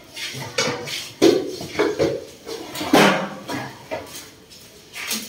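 Domestic cats mating: a series of short, harsh cries and growls, several in a row about a second apart, the loudest about a second and three seconds in.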